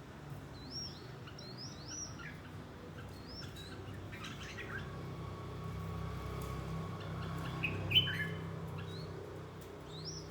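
Red-whiskered bulbul calling in short, quick, arching chirps, a run of them in the first few seconds and a few more, one louder, near the end, over a low steady hum.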